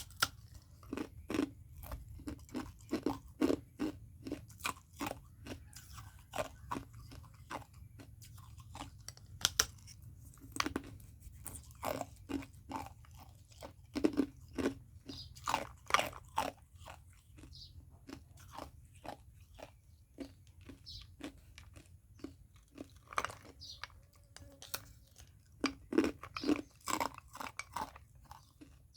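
Ice being chewed close to the microphone: a rapid, irregular run of sharp crunches with short pauses between bites.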